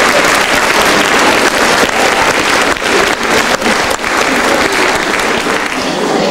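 Theatre audience applauding: loud, dense clapping that goes on without a break.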